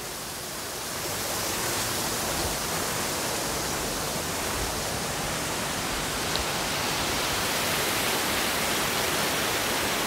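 Sera Ella waterfall pouring into its pool: a steady rushing hiss, heard from the cave right behind the falling curtain of water. It gets a little louder about a second in.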